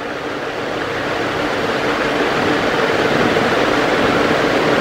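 Steady mechanical droning noise, like a motor running, growing gradually louder.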